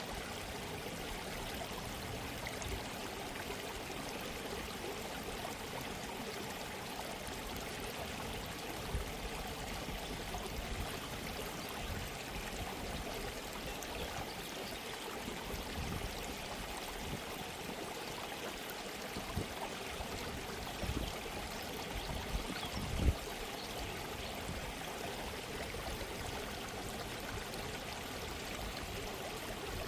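A gently running stream, its water trickling and babbling steadily, with a few brief low thumps, the strongest about 23 seconds in.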